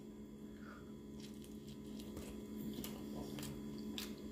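A person biting into a taco and chewing, with faint, scattered wet squishy mouth clicks over a steady low hum.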